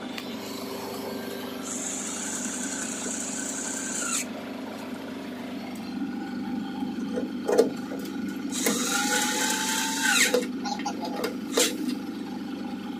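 Cordless electric screwdriver running in two short bursts of about two seconds each, the first starting under two seconds in and the second about nine seconds in, driving terminal screws on a generator controller. A few sharp clicks come between the runs, over a steady low hum.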